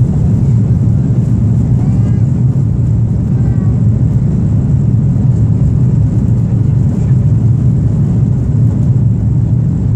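Steady, low-pitched cabin noise of an Airbus A330-223 in flight, heard from a window seat beside the wing: its Pratt & Whitney PW4000 turbofans and the air rushing over the fuselage make an even rumble with no change in level.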